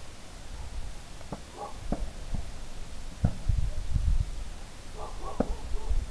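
A distant aerial fireworks display: a handful of shells bursting in sharp bangs, with a low rumbling boom around the middle.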